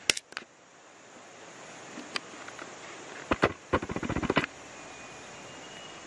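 Steady rushing of river water. About three and a half seconds in it is broken by a quick run of sharp knocks or clicks lasting about a second.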